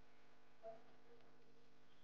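Near silence: faint room tone with a steady low hum, and one brief faint sound about two-thirds of a second in.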